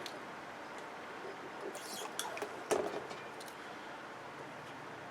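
A few scrapes and clicks of small parts being handled as a flat-screen television is taken apart, with one sharp knock near the middle.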